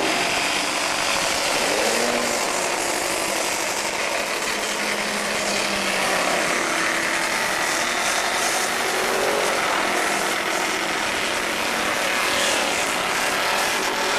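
Engines of several small historic single-seater racing cars running and being revved as the cars pull away one after another, their pitch rising and falling.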